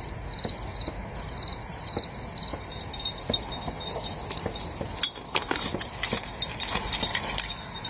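Crickets chirping in a steady high trill of short pulses, about three a second, with scattered clicks and rustling close by.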